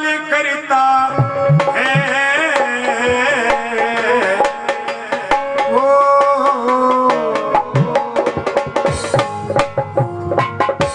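Instrumental devotional bhajan music: a melody held in long, shifting notes over drumming, with quick percussion strokes that grow denser in the second half.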